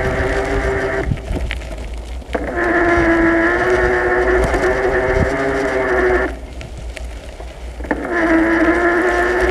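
A small motor whines at one steady pitch and cuts out twice, for a second or so each time: about a second in and again just past six seconds. Each time it comes back it slides up slightly in pitch before settling. A low rumble runs underneath.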